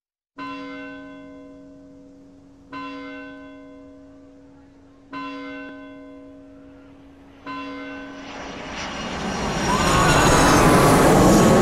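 A church bell tolls four slow strokes, each ringing on and fading before the next. Over the last few seconds a loud, rising wash of noise with high whistling tones swells in and drowns it out.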